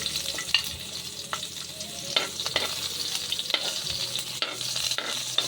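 Chopped onion sizzling in hot oil in a pan, a steady frying hiss, with irregular knocks and scrapes of a utensil stirring against the pan.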